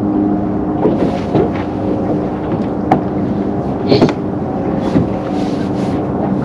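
Boat motor running steadily while trolling, under wind and water noise, with a few sharp knocks.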